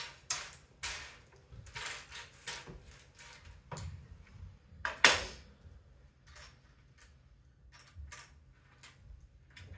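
Loose plastic Lego pieces clicking and clattering as hands rummage through them: quick runs of rattles in the first few seconds, then sparser clicks, with one louder clack about five seconds in.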